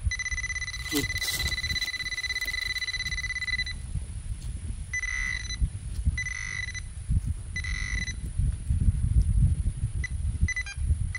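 Handheld metal-detecting pinpointer beeping as it is held against loose soil, signalling metal close by. It sounds one long high tone for about three and a half seconds, then three shorter beeps a second or so apart and a few quick chirps near the end, over the rustle of hands digging in dirt.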